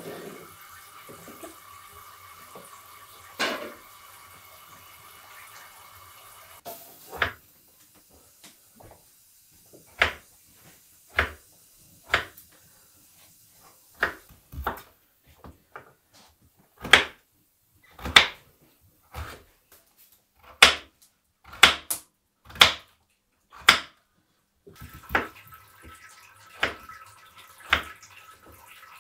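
Knife cutting raw potato on a wooden chopping board, sharp single knocks about once a second from about seven seconds in. Before that there is a steady faint hum with one knock.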